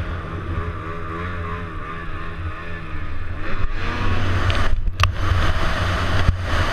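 Ski-Doo snowmobile engine running under throttle through powder, its pitch rising and falling, growing louder with a rushing noise a little over halfway through. A single sharp click about five seconds in.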